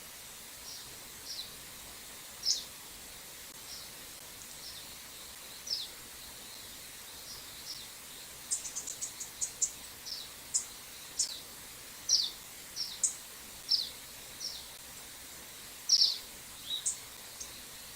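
Birds calling: repeated short, high, downward-sliding call notes, a few every second or two, with a quick run of very short, higher chips about halfway through.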